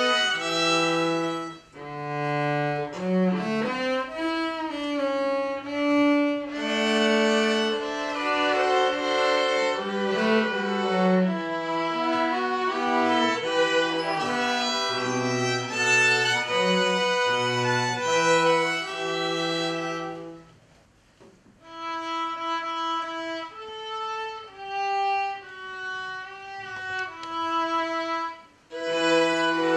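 Children's string quartet of violins and a cello playing a melodic piece together. The music pauses briefly about twenty seconds in, then resumes.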